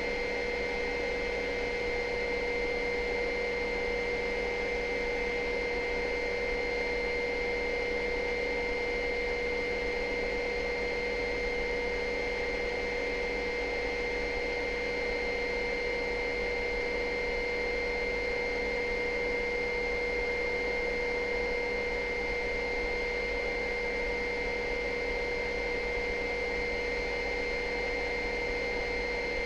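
Helicopter in steady climbing flight: an even drone with a constant whine that holds the same pitch throughout.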